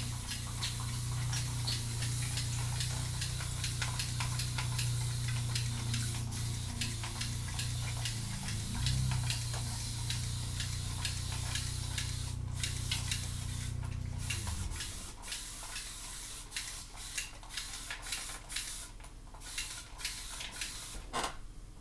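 A plastic squeeze applicator bottle squirting and spluttering a wet amla powder hair mask onto the scalp, with many small clicks and crackles from the bottle and the gloved hands. A steady low hum runs underneath and stops about two-thirds of the way through.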